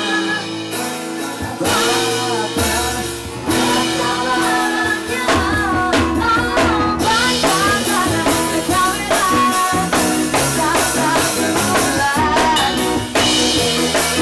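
Live band rehearsing a song on drum kit, guitar and keyboards, with singers on microphones. The band fills out a couple of seconds in and the vocal line comes in a few seconds later.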